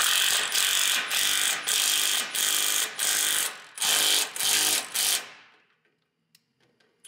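Milwaukee cordless impact wrench hammering in a string of short trigger bursts, about nine, as it drives a bolt tight through a truck frame; it stops a little after five seconds in.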